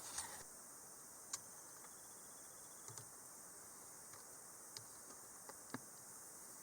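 Near silence: faint steady hiss with a few soft, scattered clicks.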